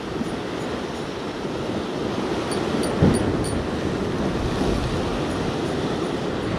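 Surf breaking and washing over a rocky shore, with wind buffeting the microphone and a short thump about three seconds in.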